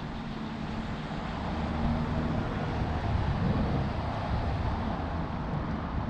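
Strong wind buffeting the camera microphone, a low rumble that swells about two seconds in, mixed with road traffic passing on the street.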